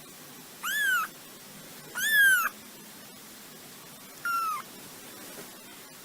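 Cat meowing three times: short, high meows, each rising and then falling in pitch.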